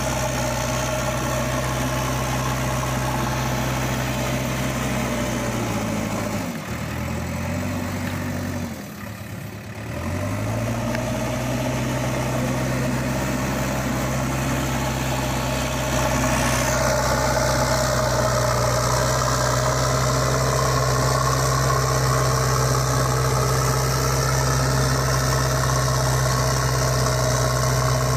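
Steady engine idling hum. About six seconds in, its pitch and level sag for a few seconds, then it settles back to a steady idle.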